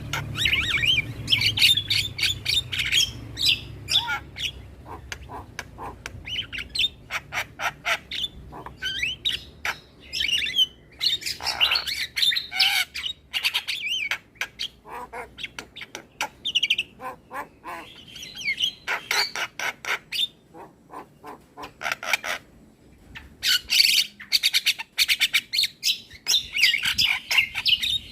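Javan mynas calling: rapid runs of short, harsh squawking and chattering notes mixed with whistled phrases, broken by a couple of brief pauses. A low hum lies under the first several seconds.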